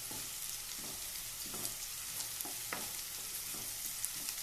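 Chopped onion and ginger-garlic paste sizzling in hot oil in a non-stick kadhai, with a wooden spatula stirring and scraping across the pan in repeated short strokes.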